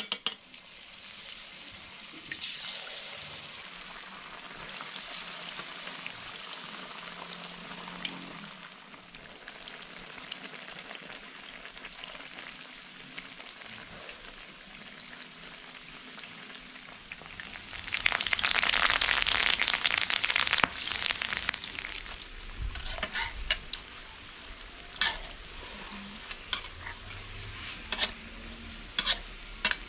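Battered banana slices deep-frying in a wok of hot oil: a steady sizzle and crackle, louder for a few seconds about two-thirds of the way through. Near the end, several sharp knocks of a metal spatula and wire strainer against the wok as the bananas are lifted out.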